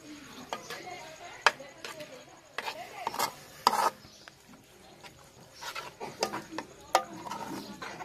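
A spoon stirring almonds into thick milk in an aluminium pot, scraping the bottom with irregular clicks and knocks against the metal sides.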